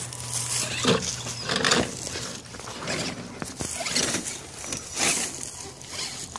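Electric RC rock crawler (Axial SCX10) working over a rock pile: a steady motor hum that stops about a second in, then irregular scraping and crunching as its tyres and chassis grind over the stones. Its battery is running down.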